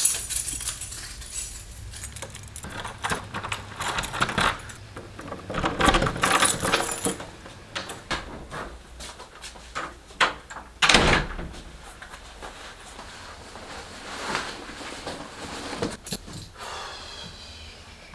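Keys jangling in loose bursts as a person walks and handles things, with a loud thud about eleven seconds in as a door is worked.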